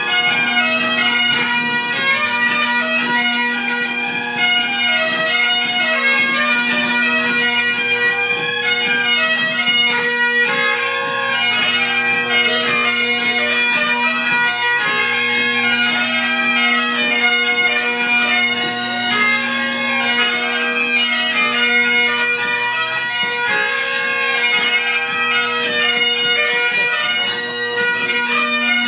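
Three Highland bagpipes playing a tune together, the melody on the chanters running over a steady drone.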